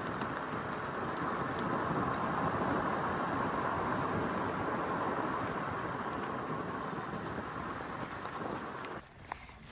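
A vehicle driving, a steady rush of tyre and engine noise that cuts off sharply near the end.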